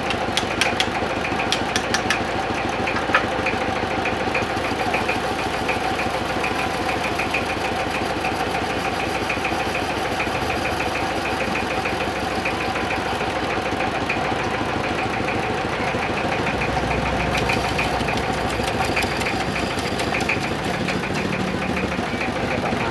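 Lathe running steadily while turning a wooden kendang drum body, with a few sharp clicks in the first few seconds.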